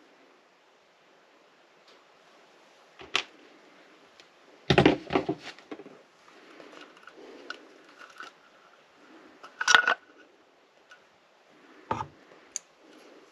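Small tools and locomotive parts being handled on a workbench: scattered clicks and knocks, loudest in a short cluster about five seconds in and again near ten seconds, with faint rustling between.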